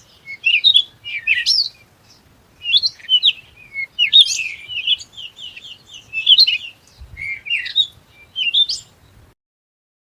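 Pet birds chirping in quick, high, repeated bursts of twittering; the sound cuts off suddenly about nine seconds in.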